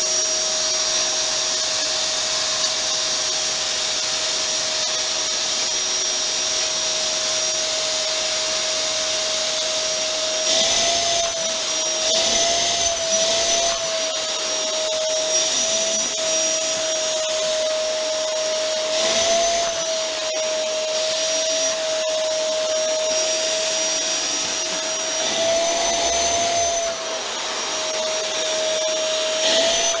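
Canister vacuum cleaner running steadily, a rushing hiss of suction with a constant motor whine. Several times in the second half the whine briefly rises and wobbles in pitch.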